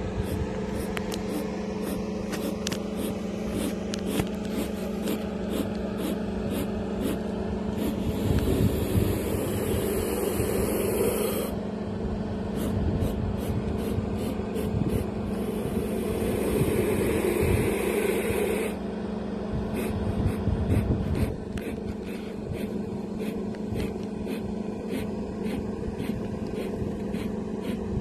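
Steady hum of an idling engine, with two gusts of wind noise on the microphone, about eight and sixteen seconds in, and many faint clicks throughout.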